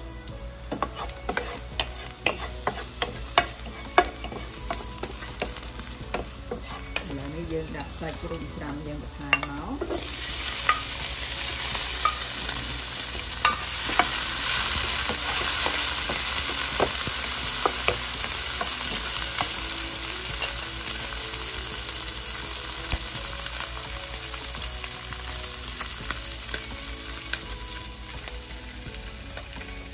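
Stir-frying in a pan: a utensil clicks and scrapes against it, then about ten seconds in a loud frying sizzle starts suddenly and slowly fades, with occasional clicks of stirring over it.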